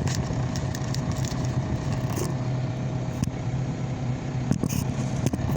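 Cat 308 excavator's diesel engine idling steadily, heard from inside the cab. A few sharp knocks and scrapes about three seconds in and near the end come from the camera being handled and fitted into a window holder.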